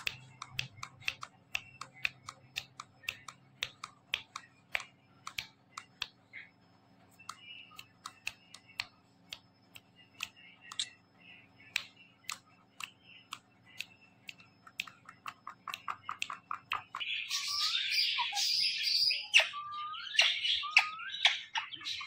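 Indian ringneck parrot's beak and claws tapping on a concrete floor: a long run of sharp, irregular clicks, a few each second. Near the end, loud, high parrot squawks and chirps with gliding pitches take over.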